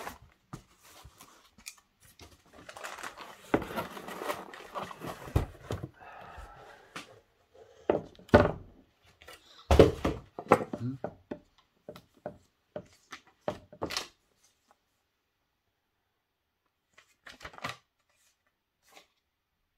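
Unpacking noise from a cardboard shipping box and its foam packing: rustling and scraping with scattered knocks and thunks as the packing is pulled out and a boxed model is set down. About 14 seconds in it goes almost quiet, with only a couple of faint rustles after.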